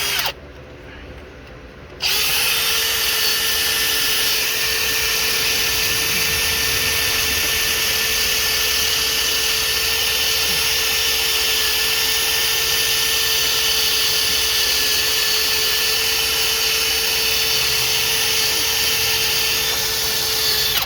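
Power tool spinning an abrasive wheel against the exhaust port faces of a 305 small-block Chevy's cylinder head, scrubbing off old gasket residue so the headers will seal. It runs steadily, stops just after the start, restarts about two seconds in, and cuts off at the end.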